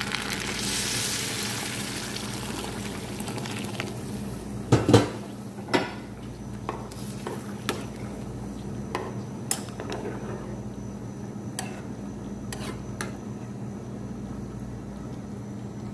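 Rice frying in oil in a nonstick pan: a sizzle that fades over the first few seconds. A spoon then stirs the rice, knocking and clinking against the pan about a dozen times at uneven intervals.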